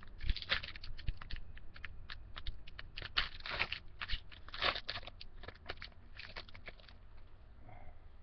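Baseball cards being flipped through by hand: a run of quick clicks and slides of card against card, thinning out about seven seconds in.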